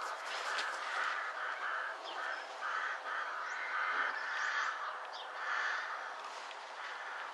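Birds calling outdoors: a run of harsh, rasping calls about half a second each, one after another, with a few thin higher chirps over them.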